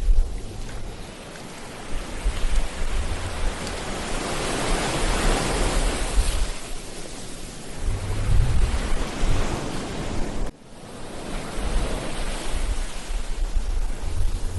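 Ocean waves breaking and washing up the shore, swelling to a peak about midway and again near the end, with low gusts of wind buffeting the microphone. The sound drops off abruptly for a moment about two-thirds of the way in.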